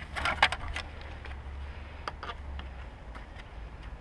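Kayak paddles and gear being handled: a quick cluster of knocks and clatter in the first second, then two single knocks about two seconds in, over a steady low hum.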